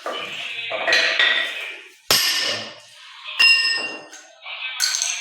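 Hammer blows on a chisel, chipping out the old floor drain and surrounding floor: scraping and chipping at first, then two sharp metallic strikes a little over a second apart, the second one ringing.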